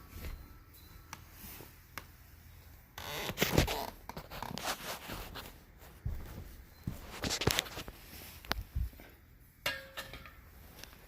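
Hands working propane hose fittings and a quick-disconnect coupler: scraping and rustling with several sharp metal clicks and knocks, and one brief ringing clink near the end.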